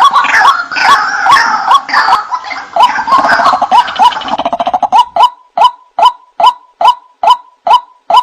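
White-breasted waterhen (ruak-ruak) calls played as a bird-lure recording: harsh notes repeated over and over, several calls overlapping for the first few seconds, then a single even series at about two and a half notes a second from about five seconds in.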